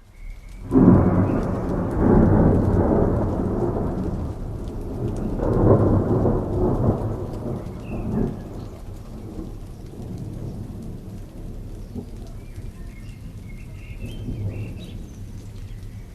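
Thunder breaks loudly about a second in and rolls on in low rumbles, swelling again around six seconds. It then fades, leaving steady rain falling.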